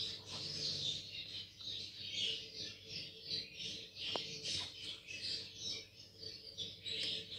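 Budgerigar chicks giving raspy begging chirps in quick, uneven runs while being syringe-fed hand-rearing formula.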